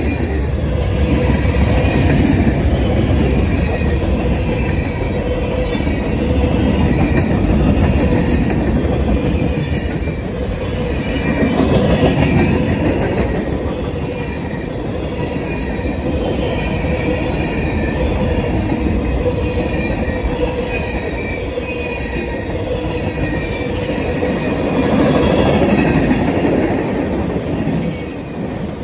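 Freight cars rolling past on the rails: a continuous steel-wheel rumble that swells and eases as cars go by, with a thin steady squeal from the wheels.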